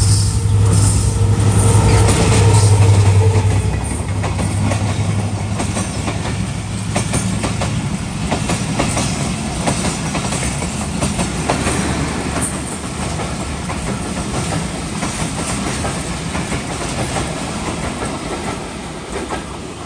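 EMD GT42AC diesel-electric locomotive running past with a steady low engine drone, which drops away about three and a half seconds in. The passenger coaches then roll by, their wheels clicking and knocking irregularly over the rail joints under a steady rumble.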